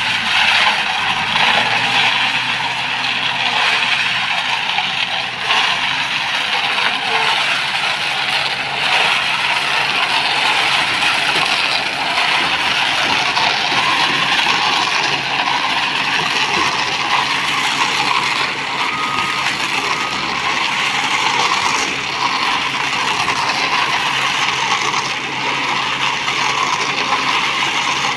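Ajax Fiori self-loading concrete mixer running: a steady mechanical din with a scraping, rattling edge that holds at an even level throughout.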